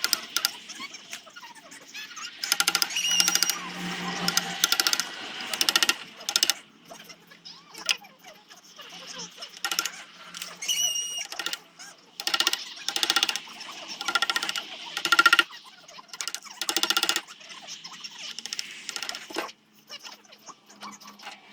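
Zelkova root wood being sanded: repeated short bursts of fast, rasping abrasion, each about half a second to a second long, with short pauses between them, over a faint steady hum.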